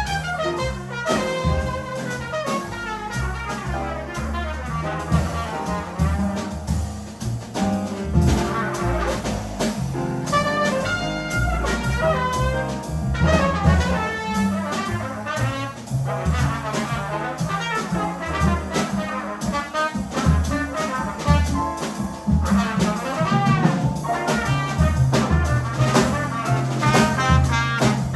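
Small jazz group playing live: a trumpet line over piano, double bass and drum kit, with steadily changing bass notes underneath and cymbal strokes throughout.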